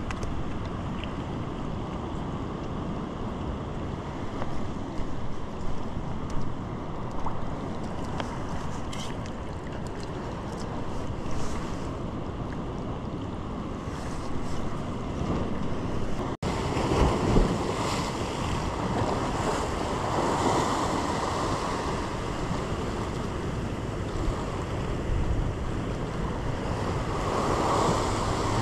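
Wind on the microphone over the wash of sea waves on a rock shoreline. A little past halfway the sound cuts to louder surf, with waves breaking against the rocks in swells.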